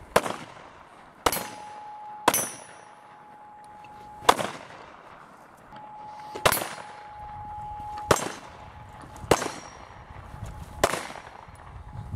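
Rifle gunfire in live-fire drills: about nine single shots, irregularly spaced a second or two apart, each with a short echo.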